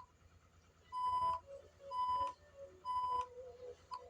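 Morse code tone beeping out the SOS distress signal. The last short beep of the first S sounds right at the start, then three long beeps make the O, and the first short beep of the closing S comes near the end; every beep is on one steady pitch.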